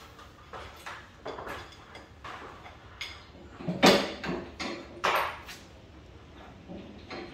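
Scattered metal knocks and clanks from hands and tools working at a steel two-post car lift column. The two loudest come about four and five seconds in.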